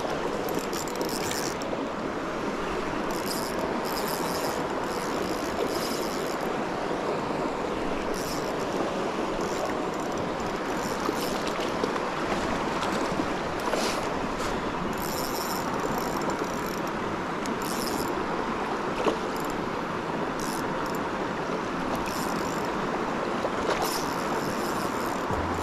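Steady rush of a shallow mountain river running over stones, with short spells of faint, higher whirring from a spinning reel being wound in.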